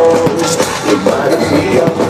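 Loud music from a festival sound system, with held melodic notes; no separate firework bangs stand out above it.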